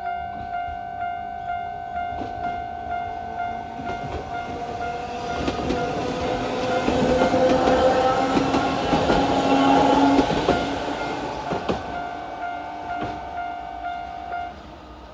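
Railroad crossing warning bell ringing with an even ding about twice a second, while a Sangi Railway Hokusei Line narrow-gauge train passes over the crossing with rising then fading rumble and wheel clacks. The bell stops near the end once the train has cleared.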